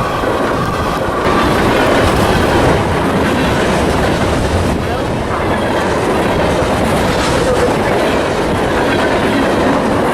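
Freight train passing close by: a steady, loud rolling noise of steel wheels on rail as the manifest's cars go past, a little louder from about a second in.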